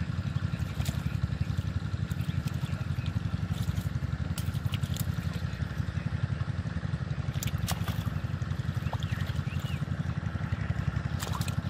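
A steady low engine drone with a fast flutter runs throughout. Over it come scattered small splashes and clicks of water as a large catfish is handled and lifted out of shallow muddy water by hand, and a bird chirps briefly about nine seconds in.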